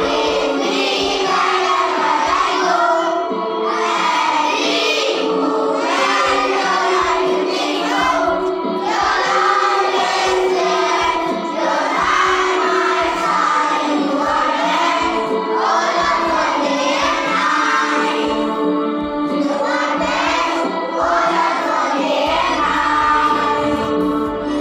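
A small group of children singing a prayer song together into a microphone.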